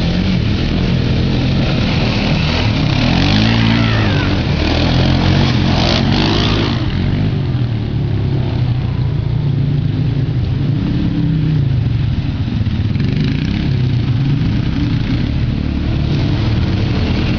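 ATV engines revving and backing off over and over, their pitch rising and falling as the quads run the trail and its corners.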